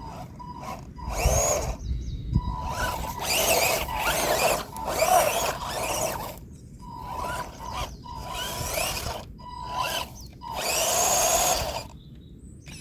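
Electric motor of a remote control car revving in repeated bursts of a second or two, a steady whine holding between them, as the car struggles to climb a muddy hump.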